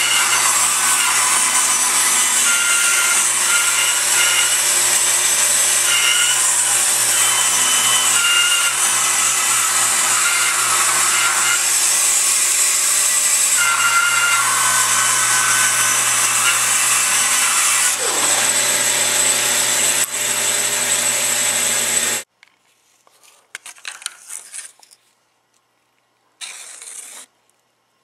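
Bandsaw running and ripping thin strips from a wood board, a steady saw noise. It cuts off suddenly about 22 seconds in, leaving only a few faint sounds.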